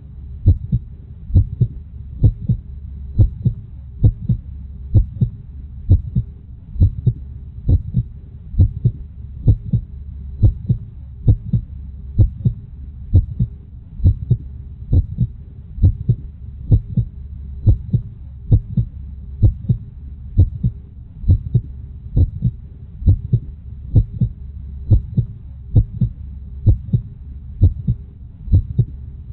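Heartbeat sound effect: a steady lub-dub double thump, a little faster than once a second, over a low steady hum.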